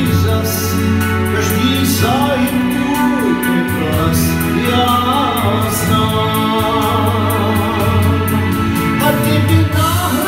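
Pop backing track played through a PA speaker: an instrumental passage between sung lines, with a steady beat, bass and a melody line gliding over it.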